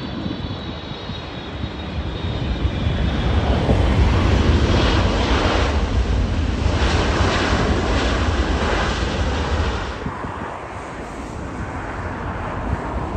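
Jet airliner's engines going past: the noise builds over the first few seconds, is loudest from about four to nine seconds in, then eases off after about ten seconds.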